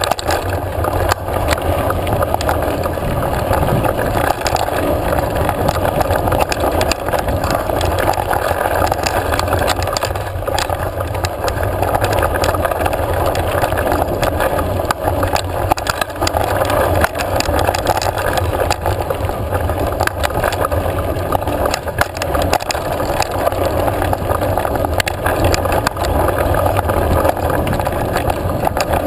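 Mountain bike riding over a dirt singletrack, heard through a mounted action camera: a steady rumble of tyres on dirt and wind on the housing, with frequent clicks and rattles from the bike.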